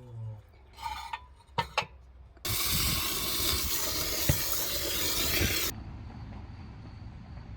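Water pouring for about three seconds, starting and stopping suddenly, after a few light knocks.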